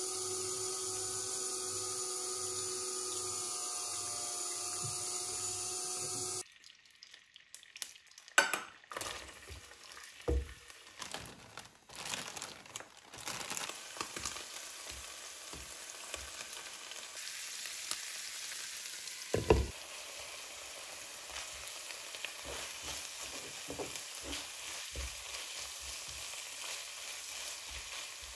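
Food frying in a pan, an even sizzle with a utensil stirring and knocking against the pan now and then. It is preceded by a steady hum with several held tones that cuts off suddenly about six seconds in.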